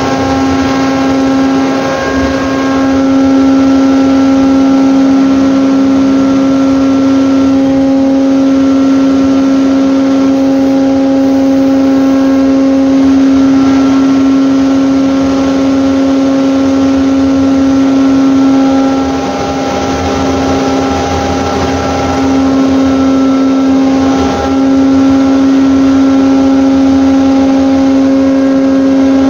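Ship's mooring winch running as it heaves in a mooring rope on its warping head: a loud, steady pitched hum with higher tones over it, dipping briefly twice in the second half.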